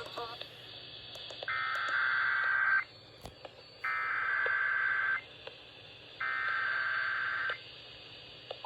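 NOAA Weather Radio SAME header: three bursts of warbling digital data tones, each about a second and a half long with roughly a second's pause between them, over radio hiss. They mark the start of an emergency alert.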